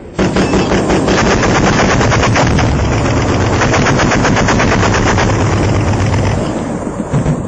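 A long burst of rapid automatic gunfire that starts abruptly and keeps going for about six seconds, thinning out near the end.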